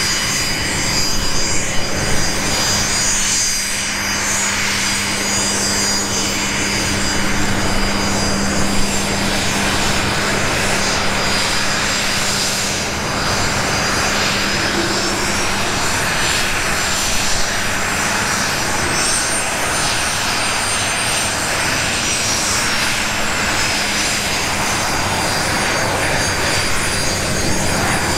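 Alpha Jets' twin Larzac turbofan engines running at taxi power: a steady jet whine with a low hum and thin high-pitched compressor tones, one of which rises and falls again in the second half.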